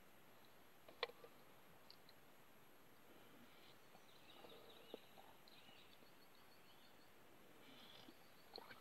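Near silence: faint birdsong with thin chirps in the distance, and a single sharp click about a second in.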